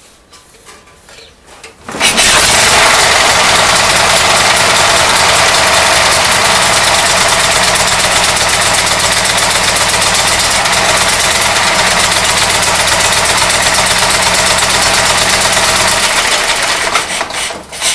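The 1914 Matchless 8B's Motosacoche inlet-over-exhaust engine running loud and steady. It comes in suddenly about two seconds in and dies away near the end.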